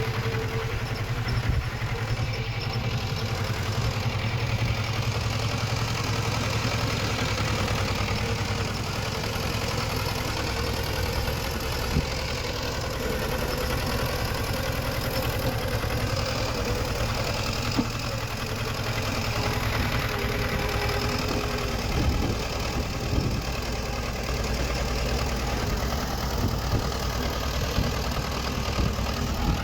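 Diesel engine of heavy earthmoving machinery running steadily at an even pitch, with a few short clanks about halfway through and again near the end.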